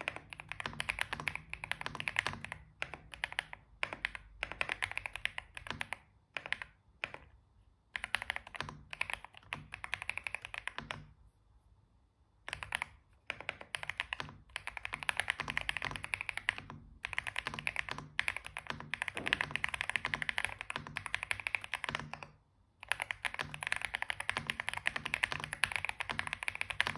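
Xinmeng M87 gasket-mount mechanical keyboard being typed on quickly in long bursts, in stock form with its lightly pre-lubed 38 g Dark Plum linear switches. There is a short break in the typing about halfway through and another near the end.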